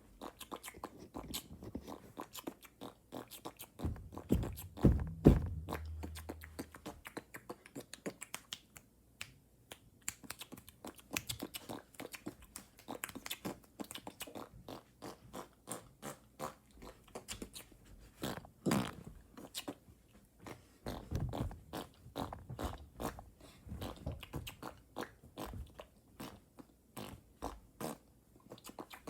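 Close-miked mouth noises: a steady run of wet clicks and smacks like chewing, with louder, deeper bursts about four to six seconds in and again past the middle.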